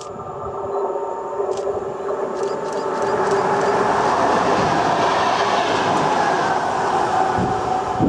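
VR electric commuter train running through the station without stopping. Its rumble and wheel noise on the rails grow louder over the first three seconds as it nears and passes close by, with a steady hum running under it.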